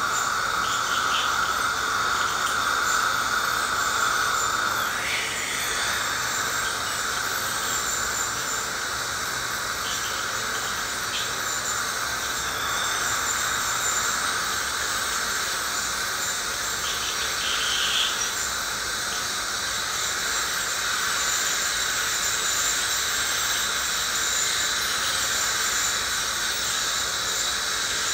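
Woodpecker ultrasonic scaler working against heavy tartar on the teeth: a steady high-pitched whine with the hiss of its water spray. There is a brief falling glide in pitch about five seconds in.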